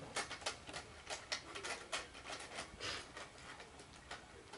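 Irregular light clicks and clatter of small hard toy train pieces being handled and rummaged through, several taps a second.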